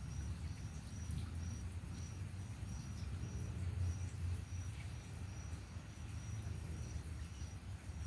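An insect, cricket-like, chirping steadily: short high-pitched chirps at an even pace of about two a second, over a low rumble.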